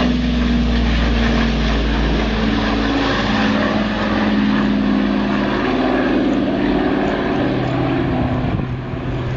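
Douglas DC-6's four radial piston engines and propellers running at take-off power as the airliner climbs away, a loud steady drone whose note wavers and shifts, easing off slightly near the end.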